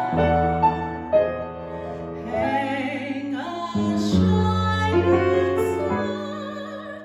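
Music: slow piano accompaniment with a singing voice holding long notes, one of them with vibrato in the middle.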